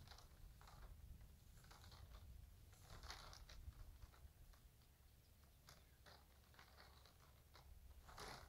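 Near silence: faint low wind rumble on the microphone with a few scattered faint crackles.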